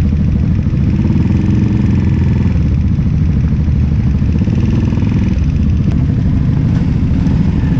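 Keeway K-Light 202's single-cylinder engine running steadily at low revs as the motorcycle rolls along at walking pace.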